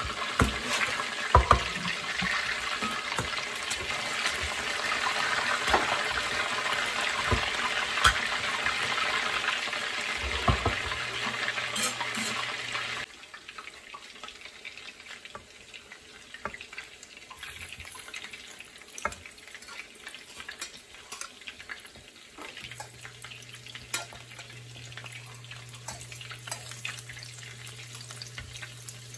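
Tilapia cakes sizzling in hot oil in a skillet, with clicks and scrapes of a metal spatula. About 13 seconds in, the sizzle drops abruptly to a quieter crackle with occasional ticks.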